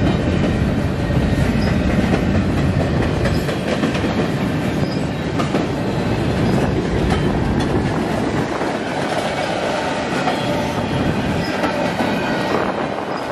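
Freight train cars rolling past, their wheels clacking over the rail joints with brief faint wheel squeals, a steady loud rumble that eases in the deepest part about two-thirds of the way through.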